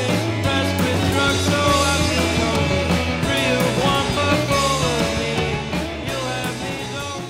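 Rock music.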